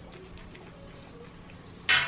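Close-miked eating: a quiet stretch with a steady low hum, then a sudden loud, sharp mouth sound near the end as she bites into or chews the fried chicken sandwich.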